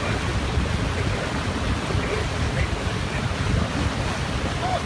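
Wind buffeting the microphone over the steady rush of a motorboat's churning wake as the boat runs at speed.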